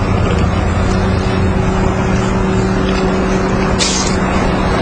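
Steady loud background noise with a low, even electrical-sounding hum, and a brief scratchy sound about four seconds in.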